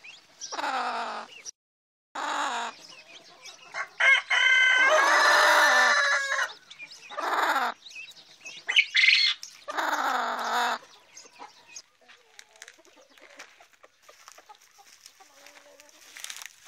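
Chickens calling: a rooster crows once, a long call of nearly three seconds starting about four seconds in, among several shorter clucks and calls. The calls die away after about eleven seconds.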